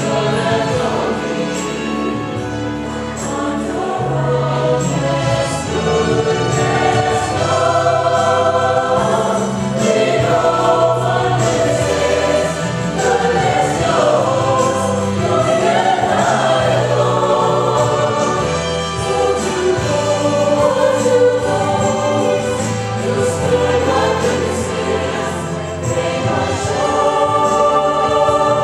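Chamber choir of mixed male and female voices singing a Broadway show tune in harmony, without a break.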